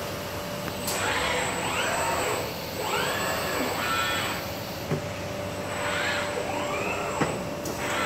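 Industrial robot arm's servo drives whining as the arm moves a box onto a roller conveyor, each whine rising and then falling in pitch as a move speeds up and slows down. Two sharp clicks come about five and seven seconds in, over a steady hum.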